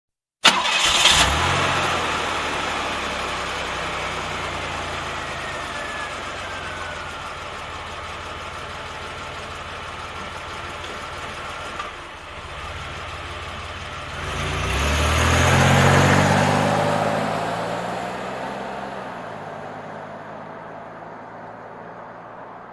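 A car engine is started: it cranks and catches suddenly about half a second in, then settles into a steady idle. About fourteen seconds in it revs up, rising in pitch and level. After that the engine note eases off and gradually fades, as the car pulls away.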